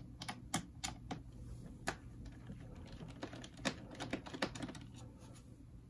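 Irregular small clicks and taps of laptop bottom-cover screws and a screwdriver being handled, with screws set down on a magnetic parts pad. The clicks come in two clusters: a few in the first second and a quicker run from about three to five seconds in.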